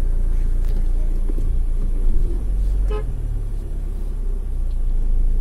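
Car engine running with a steady low rumble, heard from inside the cabin, and one short horn toot about three seconds in.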